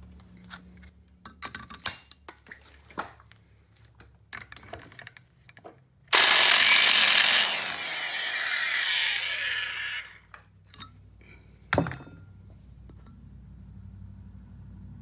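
Electric valve seat grinder spinning its stone against a valve seat in an old cast-iron engine head: a loud grinding hiss starts about six seconds in, eases after a second and a half, and winds down with a falling whine, stopping around ten seconds in. Before it come scattered metal clicks of the stone holder being fitted over the pilot, and a single sharp knock follows.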